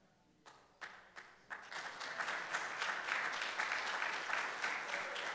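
A congregation applauding: a few scattered claps about half a second in, building into steady applause by about a second and a half.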